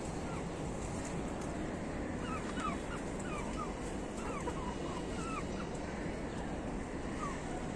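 Birds chirping: a scatter of short, squeaky call notes, busiest in the middle, over a steady low background noise.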